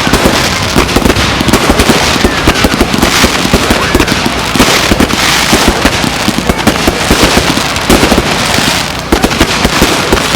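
Fireworks going off in a rapid, unbroken crackle of many small bangs.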